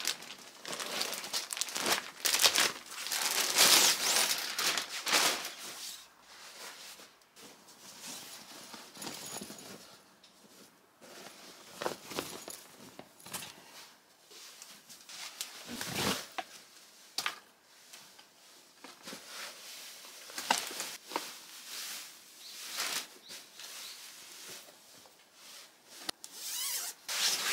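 Plastic packaging crinkling and rustling as a rolled toddler nap mat is pulled out of its wrap, loudest in the first few seconds. After that, quieter rubbing of fabric as the thick mat and its quilted cover are handled, with scattered sharp clicks and knocks.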